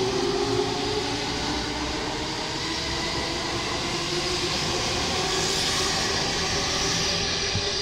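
JR East E231 series electric train running past the station platform: a steady rumble of wheels on rails. A humming tone fades out in the first second.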